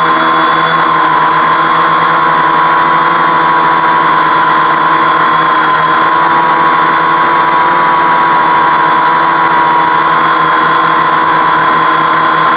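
Homemade 520 mm quadcopter's motors and propellers hovering in Loiter mode: a loud, steady buzzing whine whose pitch wavers slightly as the flight controller holds position.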